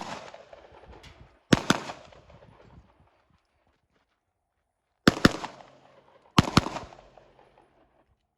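Handgun shots fired in quick pairs: three double taps, the two shots of each pair a fraction of a second apart, each shot sharp with a short echo after it.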